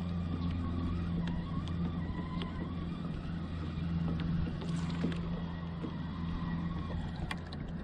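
Motorized kayak's motor running steadily at trolling speed: a low, even hum with a fainter higher whine over it and a few light ticks near the end.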